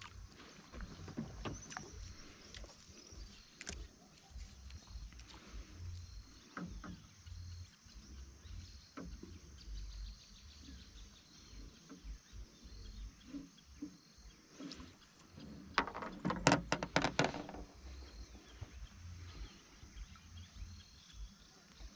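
Scattered knocks and rustles of handling on a small plastic float, over a low rumble of wind on the microphone. About sixteen seconds in comes a burst of rapid slaps and knocks lasting a second or two, the loudest moment.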